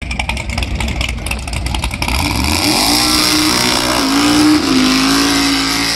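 Drag-racing Chevrolet Nova's engine, loud and choppy for the first two seconds, then revving up and holding at high revs with a slight waver in pitch.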